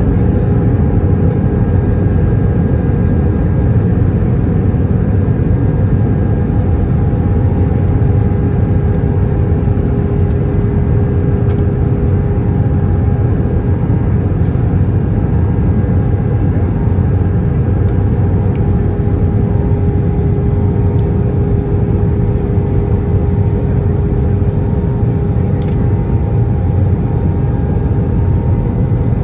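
Cabin noise inside an Airbus A319 airliner on approach with flaps extended: a steady roar of jet engines and airflow, with a steady droning hum over it.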